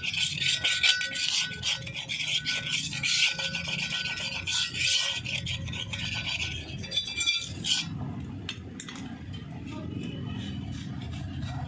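Rasping scrape of a hand tool worked in quick strokes around the inside friction surface of a Mahindra Xylo rear brake drum, cleaning off rust and crust before new brake liners go in. The scraping eases off about eight seconds in.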